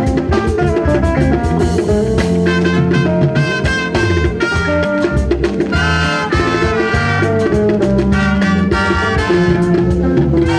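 Loud, upbeat band music with a steady beat and many instruments playing together.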